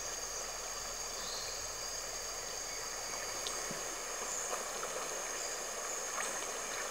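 Steady Amazon rainforest riverside ambience: an even hiss of flowing water with a couple of steady high-pitched tones held throughout, and a few faint ticks.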